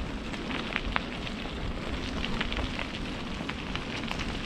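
Rain falling: a steady hiss with many scattered drops landing close by as sharp, irregular ticks.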